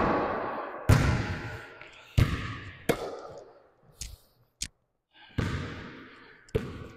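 A basketball bouncing on a court: about seven sharp, irregularly spaced thuds, each trailing off over about a second.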